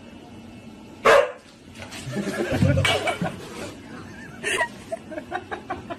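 A husky barks sharply about a second in. A noisy tussle with a cat follows, with more short barks and yelps in the last couple of seconds.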